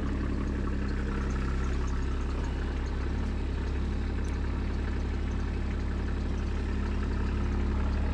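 Caterpillar 301.8 mini excavator's diesel engine idling steadily, warming up after a cold start in below-freezing weather.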